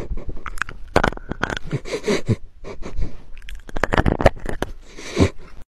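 Dachshund mouthing and licking a small wired microphone held right at its mouth: close, irregular crunching and clicking.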